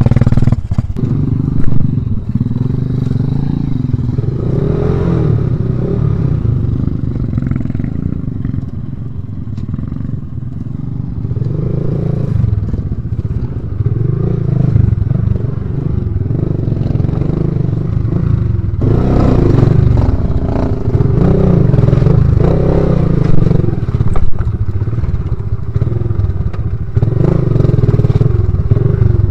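Honda XRM underbone motorcycle's small single-cylinder four-stroke engine running at low revs on a rough trail, its pitch rising and falling with the throttle, with rattling and scraping from the bike over the rocky ground. It is quieter around a third of the way in and busier and louder from about two-thirds of the way through.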